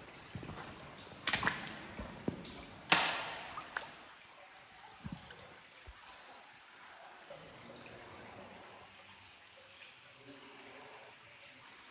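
Water in a shallow cave stream trickling and dripping, with several sharp sudden sounds in the first four seconds, the loudest about three seconds in, then only faint steady trickling.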